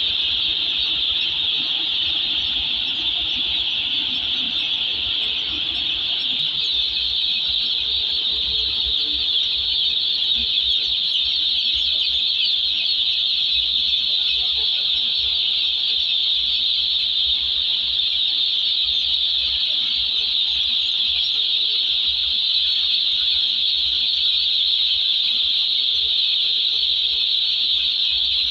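Thousands of day-old broiler chicks peeping together in their delivery crates: a dense, steady, high-pitched chorus.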